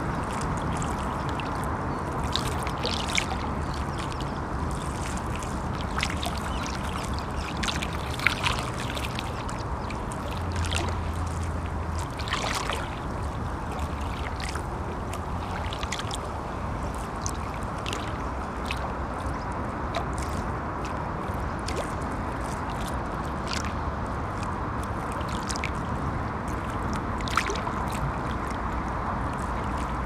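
River water lapping at the shore in irregular small splashes and clicks, a few sharper ones standing out, over a steady low rumble of traffic crossing the bridge.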